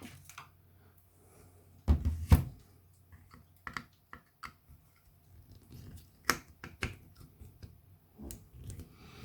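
Handling sounds of an opened 18-volt power-tool battery pack, its plastic case and lithium-ion cells: scattered clicks and knocks, the two loudest close together about two seconds in.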